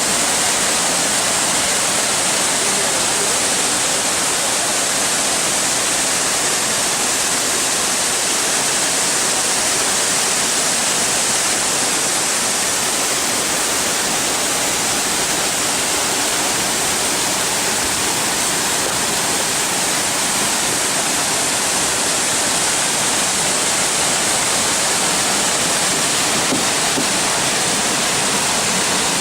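Waterfall's steady rush of falling water, a constant, unbroken noise.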